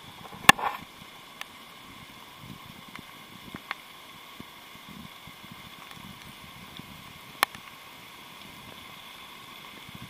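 Rainforest ambience: a steady, high-pitched chorus of calling animals under faint rustling. There are two sharp clicks, a loud one about half a second in and a softer one about 7.5 seconds in.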